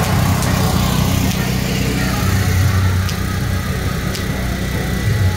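Motor vehicle engine running, a loud, steady low rumble.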